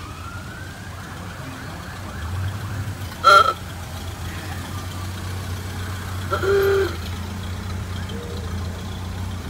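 Parade cars driving slowly past, their engines giving a steady low rumble that builds a couple of seconds in, with two short horn honks, about a third of the way in and again about two-thirds in.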